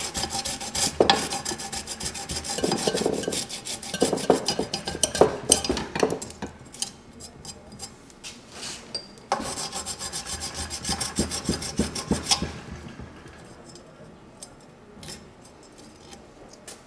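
An Allen wrench is rubbed back and forth along the edge of scooter grip tape, a rough rasping scrape that creases the tape over the deck's edge to mark the cut line. There are two spells of rapid scraping strokes with a pause of about three seconds between them, then only a few light scratches and taps near the end.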